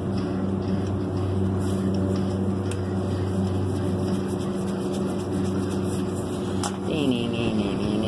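Steady low machine hum of nearby running refrigeration or HVAC equipment, with a few faint clicks from metal parts being handled.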